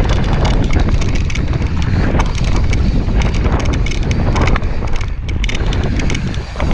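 Mountain bike descending a bumpy dirt trail at speed: wind buffeting the microphone over the rumble of knobby tyres and the rattle of the bike's chain and parts over bumps.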